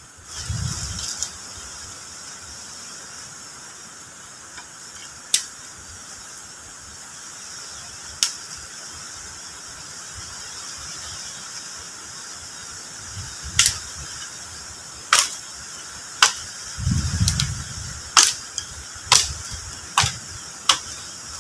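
A machete chopping into a wooden pole: sharp single strikes, two spaced a few seconds apart, then a run of about eight at roughly one a second near the end.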